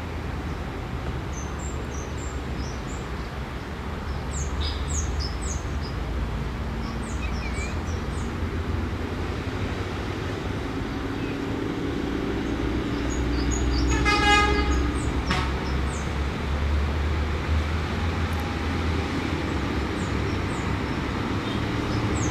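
Diesel engine of a Plasser track-maintenance machine running as it pulls out, a steady low rumble that grows louder, with one short horn toot about two-thirds of the way through. Small birds chirp.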